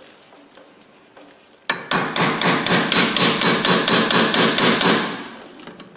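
Hammer tapping rapidly on grease cap pliers clamped on a wheel hub's grease cap, driving the cap off the hub. A quick, even run of about six strikes a second starts a little under two seconds in and fades out near the end.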